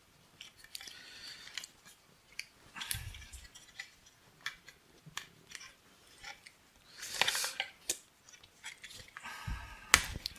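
Plastic tape being pulled off its roll in several short noisy pulls and wound around a plastic candle mould, with crinkling and small clicks from handling. The longest pull comes about seven seconds in, and a sharp click near the end.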